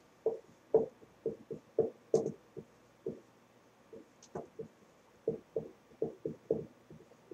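Dry-erase marker writing on a whiteboard: a run of short squeaks and taps, one with each stroke, with a pause of about a second midway.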